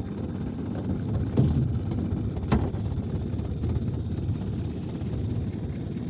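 Mercury outboard motor on a small fishing boat running steadily, a continuous low rumble, with two short knocks in the first few seconds.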